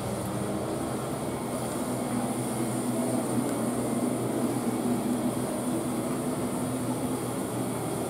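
Steady mechanical hum with a rushing noise and a few low held tones, a little louder in the middle.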